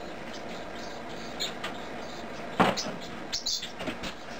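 A baking pan taken out of an oven and set down on a glass-ceramic stovetop with one sharp clunk about halfway through. Lighter clicks and knocks from the oven rack and door come before and after it.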